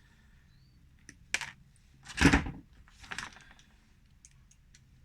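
Hand-held wire stripper clicking as it grips and strips a wire: a string of sharp clicks, with a louder clack about two seconds in and fainter ticks near the end.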